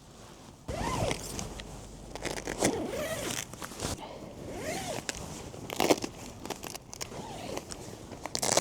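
A zipper being pulled in several strokes, each rising and then falling in pitch, with sharp clicks and rustles between them; the loudest click comes about six seconds in.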